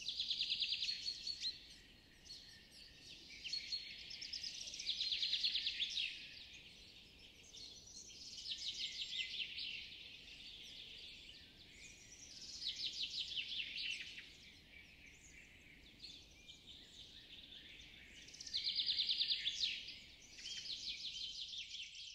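A songbird repeating a short, fast, even trill at a steady high pitch every few seconds, over a steady high hiss of woodland background.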